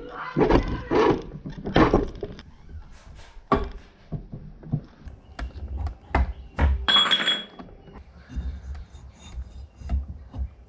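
MotorGuide trolling motor parts being handled and fitted back together on a wooden workbench: scattered knocks, clicks and rubbing, with a brief high-pitched scrape about seven seconds in.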